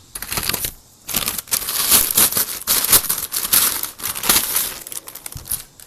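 Packaging being unwrapped by hand: a dense, loud crinkling and crackling of wrap being handled, with a brief lull about a second in.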